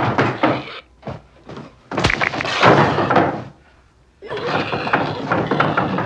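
A sharp, heavy hammer blow about two seconds in, amid dense noisy commotion that drops away for a moment before starting up again.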